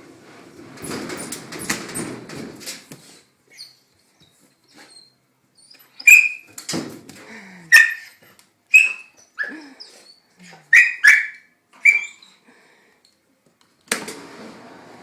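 Dog giving a run of about eight short, high-pitched yelping barks, agitated by the washing machine spinning. The washing machine's spin cycle is running in the first few seconds and again near the end.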